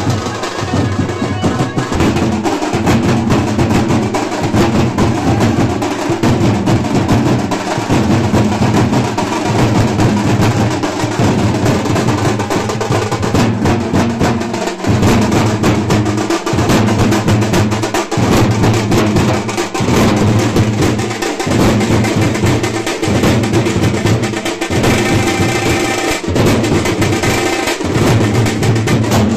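Loud music with a heavy, driving drum beat and a strong bass.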